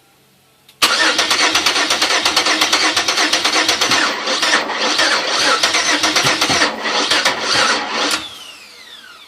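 A car engine cranking on its starter motor for about seven seconds without firing, then the starter is released and a falling whine is heard as it spins down. The engine does not catch: the car won't start.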